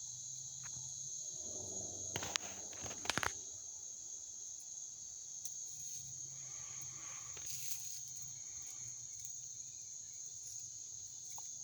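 Steady high-pitched chorus of crickets chirping without pause, with a couple of sharp cracks, like twigs or leaves, about two and three seconds in.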